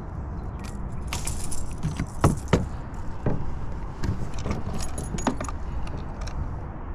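Fishing tackle clicking and jingling in quick clusters as a bass is worked free of a landing net and lifted out, the loudest clinks about two seconds in.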